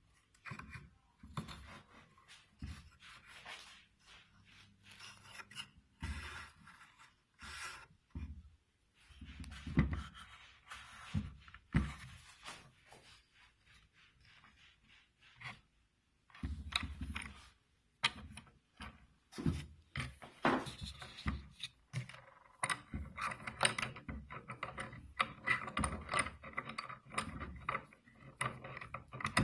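Handling noises from a homemade wooden vise with metal clamps: irregular knocks, clicks and rubbing scrapes of wood and metal, with a near-quiet stretch midway and busier handling near the end.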